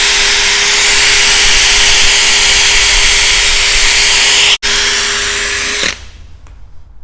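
Electric drill spinning a polishing pad at speed to buff rubbing compound into a plastic headlight lens, running steadily with a high whine. It breaks off for an instant about four and a half seconds in, then stops suddenly about six seconds in.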